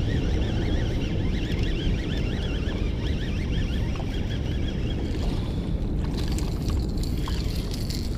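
Wind buffeting the microphone with a steady low rumble, over the faint whir of a baitcasting reel being cranked during a topwater retrieve. About six seconds in come sharp clicks and a higher hiss as the rod is swung into a fresh cast.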